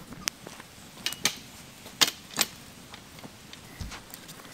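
Burning wood fire crackling, with a handful of sharp, irregular pops and snaps.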